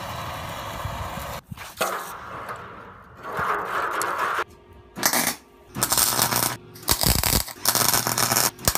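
Metal parts clinking and scraping while a chainsaw is taken apart, in a string of short, separate bursts that grow louder in the second half.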